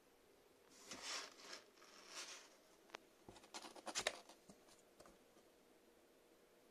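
Faint scratching and scrabbling of kittens' claws on a cardboard box: two short scratchy rustles, then a cluster of light taps and scrapes about three to four seconds in, the loudest near four seconds.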